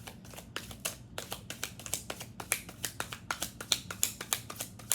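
Tarot deck being shuffled by hand: a rapid, irregular run of sharp card slaps and clicks, about six a second.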